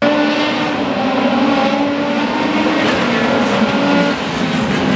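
Indy Lites race car engine running at high revs along the straight, a continuous loud note that shifts slightly up and down in pitch.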